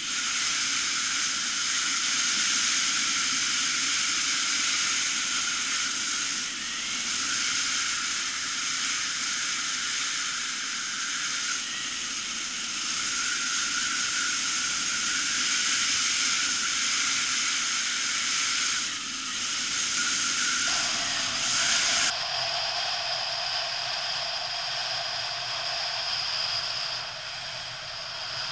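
Motorcycle under way on an open road: a steady rush of wind on the microphone mixed with engine noise. The sound changes character abruptly about three-quarters of the way through.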